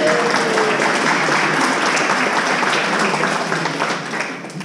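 A roomful of seated guests applauding, a dense clapping that dies down near the end.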